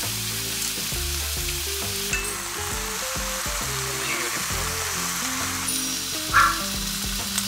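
Seasoned beef sirloin steaks sizzling and frying in a nonstick frying pan, an even steady hiss. A brief louder sound cuts in about six and a half seconds in.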